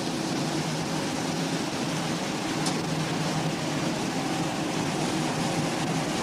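Steady machinery hum and hiss with a faint low drone, and one light click about two and a half seconds in.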